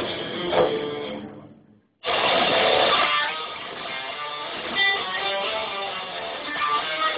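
Live band music with electric guitar strumming and drums, recorded thin through a phone's microphone. The sound fades out to a brief silence about two seconds in, then comes back abruptly at full level.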